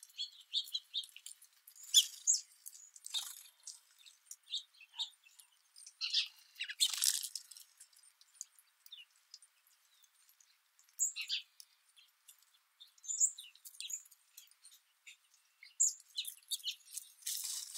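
Small songbirds chirping: many short, high chirps and tweets scattered irregularly through, with a couple of brief louder rustling bursts.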